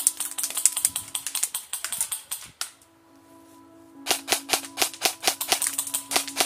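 Airsoft gun firing rapid strings of shots, in two runs with a pause of about a second and a half in the middle. Background music with steady held tones plays underneath.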